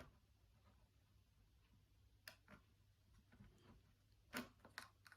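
Near silence, broken by a few faint clicks and taps from small plastic pots being handled, the loudest two a little over four seconds in.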